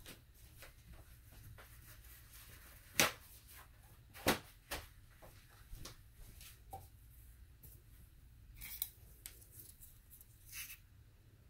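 Scattered light clicks and taps of small plastic craft supplies being handled on a table, with two sharper clicks about three and four seconds in and a brief rustle near the end.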